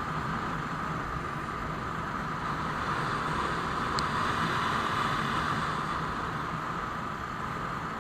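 Royal Enfield Classic 350 single-cylinder motorcycle being ridden at speed, its engine running under a steady rush of wind and road noise.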